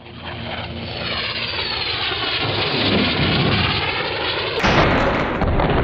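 Intro sound effect for an animated title: a jet-like roar with a sweeping whoosh swells over several seconds. About four and a half seconds in, a sudden loud crash breaks in and carries on.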